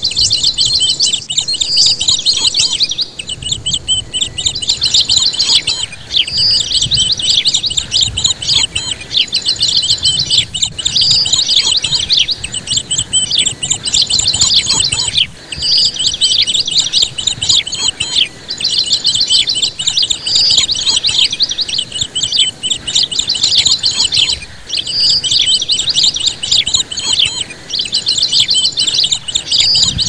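Many small birds chirping continuously in rapid high trills, with the same brighter note recurring about every four and a half seconds, as in a repeating birdsong track.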